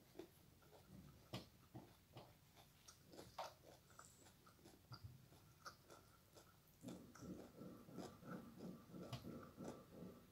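Faint close-up mouth sounds of a person eating: scattered small clicks and bites, then steady chewing at about three chews a second from about seven seconds in.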